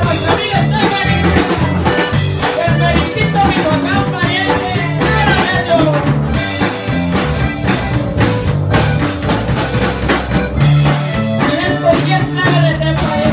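A band playing live: electric guitars strummed over a drum kit keeping a steady beat.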